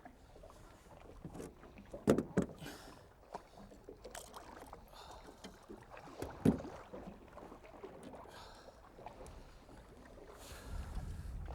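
A small fishing boat sitting on the water, with a low background noise and a few sharp knocks against the boat, two close together about two seconds in and one more about six and a half seconds in.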